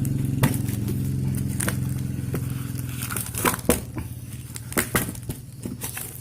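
An engine running steadily, its low hum fading away over the first three to four seconds. Scattered sharp clicks and knocks sound throughout, more often in the second half.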